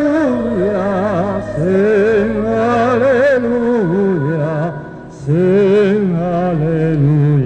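A tenor singing a slow, sustained melody with wide vibrato over a steady low note. The voice breaks off briefly about five seconds in and then comes back.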